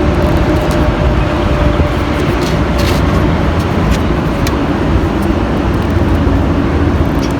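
Steady, loud motor-vehicle noise, even throughout, with a low hum, plus a few faint small clicks.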